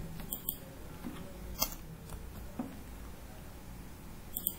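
A few sharp clicks from a computer mouse and keyboard as code is selected, copied and pasted: a quick pair soon after the start, a single click under two seconds in, and another quick pair near the end, over a faint low room hum.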